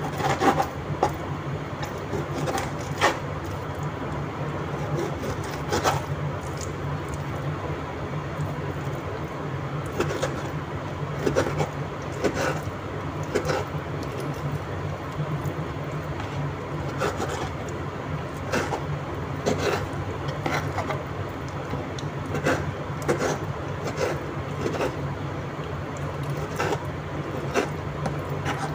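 Kitchen knife cutting raw chicken breast on a wooden chopping board: irregular knocks as the blade meets the board, with sawing and scraping strokes between them. A steady low hum runs underneath.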